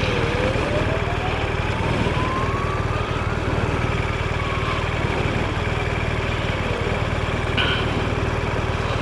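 BMW R1200RT's boxer-twin engine idling steadily. A faint emergency-vehicle siren wails behind it, rising slowly in pitch over about three seconds and then falling away.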